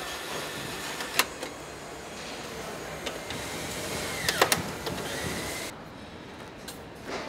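Car assembly line ambience: a steady machinery hum with sharp clicks and clacks of tools and parts about a second in and again around four and a half seconds, where a short whine drops in pitch.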